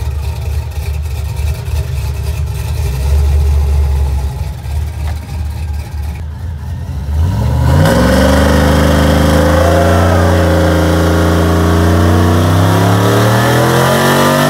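A car engine running low at idle, then revving up sharply about seven seconds in and kept at high revs, its pitch still climbing slowly.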